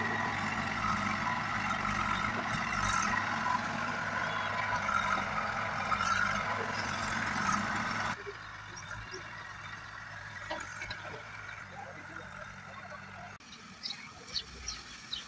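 Diesel engine of a JCB backhoe loader running steadily. It is loud at first, then drops suddenly to a lower, steady running sound about halfway through.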